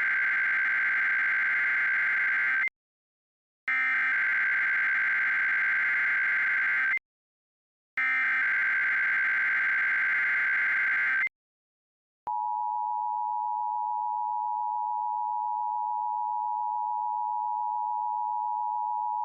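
An Emergency Alert System header: three identical bursts of shrill data tones, each about three seconds long and a second apart. After a short silence comes the steady two-tone EAS attention signal, starting about 12 seconds in and sounding to the end.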